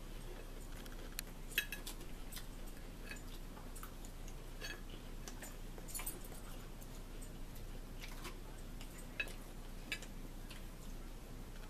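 Forks clinking and scraping on a bowl and a plate at irregular moments during a meal, a few sharper clicks standing out, over a low steady hum.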